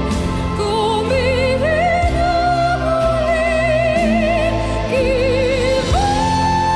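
Background music: a slow melody with vibrato, stepping up through held notes to one long high note near the end, over sustained low chords.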